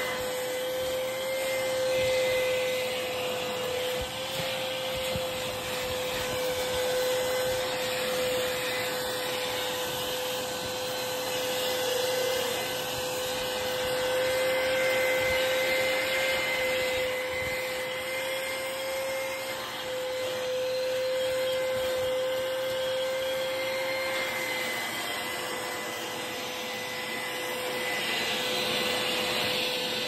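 Vacuum cleaner running steadily on fabric sofa upholstery, a constant high motor whine over rushing suction hiss. The pitch dips briefly a few times.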